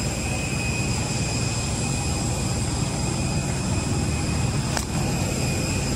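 Steady jet aircraft noise on an airport apron: a continuous rush with a thin high whine over it, and a single short click near the end.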